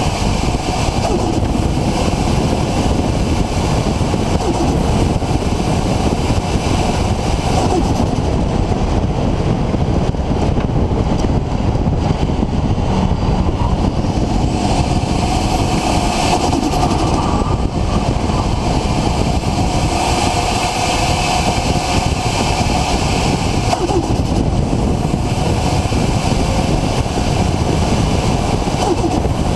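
RB26 straight-six engine with a single Garrett GTX4088R turbocharger, running loud and steady with the car under way; faint whines drift up and down in pitch.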